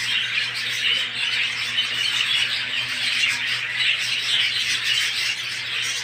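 A flock of budgerigars chattering continuously, many overlapping chirps and squawks at once.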